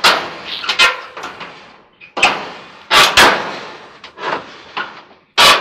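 A string of sharp sheet-metal clanks and knocks, each with a short ringing tail, as a White Westinghouse clothes dryer's front panel is worked against the cabinet to catch its bottom hooks.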